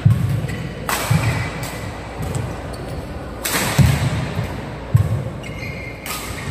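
Badminton rally in a large hall: three sharp racket strikes on the shuttlecock about two and a half seconds apart, with players' feet thudding on the court in between and brief shoe squeaks.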